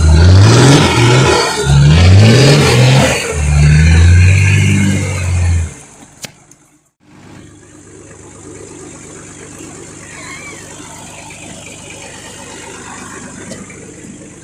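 Off-road 4x4 engine revved hard in repeated rising surges. The revving stops abruptly about six seconds in, and a much quieter steady engine hum follows.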